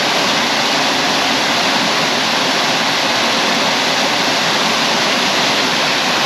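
A waterfall and creek rushing steadily, an even unbroken hiss of falling water.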